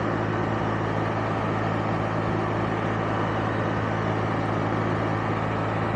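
Can-Am Spyder three-wheeled motorcycle cruising at a steady speed: an even engine drone under a constant rush of wind and road noise.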